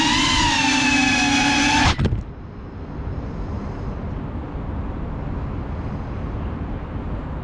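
GEPRC CineLog 35 FPV cinewhoop's motors and propellers whining at a steady pitch with a slight wobble, then cutting off abruptly about two seconds in as the drone settles on the ground. A steady background hiss remains after.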